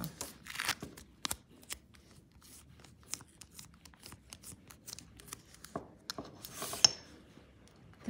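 Nail-stamping tools handled on a table, including a silicone stamper: a run of light clicks and taps, with two short scraping rasps, one just after the start and one about seven seconds in.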